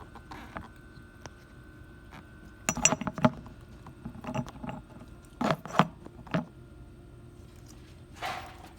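Metal clinks and knocks from car parts and hand tools being handled in a car's battery compartment, in several short clusters, with a brief rustle near the end.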